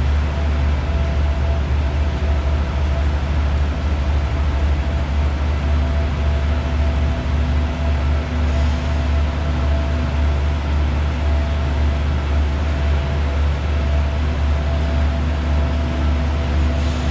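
Steady low drone of idling diesel trains in a large railway station hall, with a few faint steady tones above the hum.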